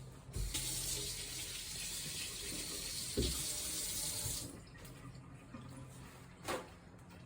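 Water running from a tap for about four seconds and then shut off, with a single knock partway through and a short click near the end.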